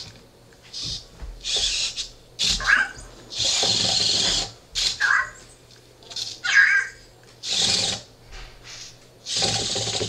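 Anki Cozmo toy robot whirring and chirping in about a dozen short bursts: its small geared motors drive the treads, lift and head, mixed with its electronic chirps, as it drives off its charger.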